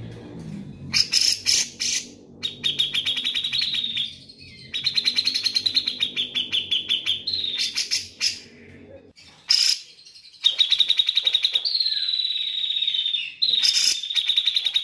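Grey-cheeked bulbul (cucak jenggot) singing: fast chattering trills at a fairly steady high pitch, in phrases a few seconds long with short breaks, and a few sharp louder notes between them.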